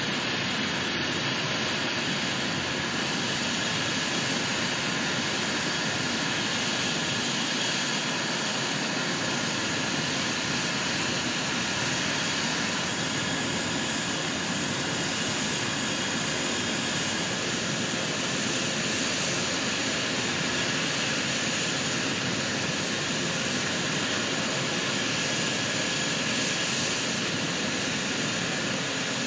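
A Eurocopter EC135 air-ambulance helicopter running on the ground, its turbine engines and rotors making a steady, even whine and rush throughout.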